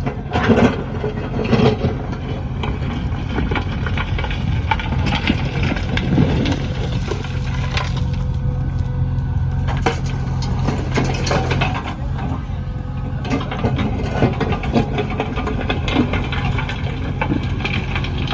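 JCB backhoe loader's diesel engine running steadily under work, with irregular knocks and clatter from the digging and soil loading.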